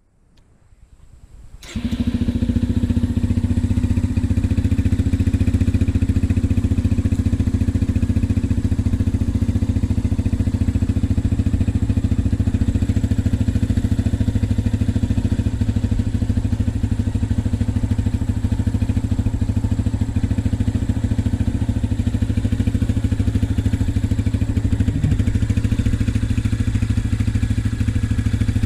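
Yamaha TT-R125's single-cylinder four-stroke engine running at a steady speed, coming in abruptly about two seconds in.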